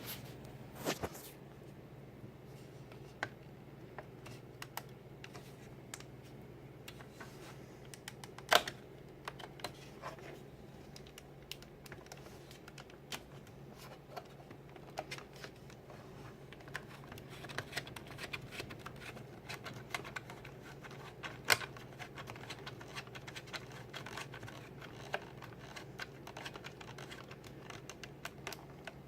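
Irregular small clicks and taps over a faint steady low hum, with two sharper clicks about a third of the way in and again about two-thirds in.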